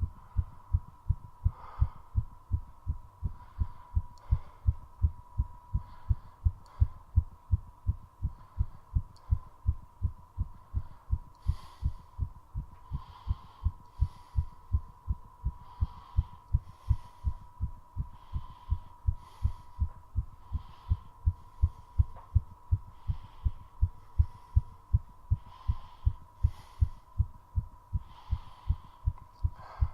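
Human heartbeat beating fast and evenly, still raised after squat exercise, with a steady faint hum under it. Heavy breathing comes through alongside, growing louder about a third of the way in.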